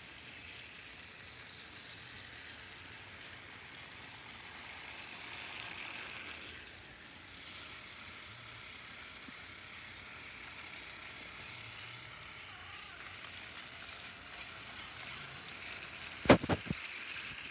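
Motorized TrackMaster toy train engines whirring steadily along plastic track. Near the end, a few sharp plastic clacks as the engines are handled.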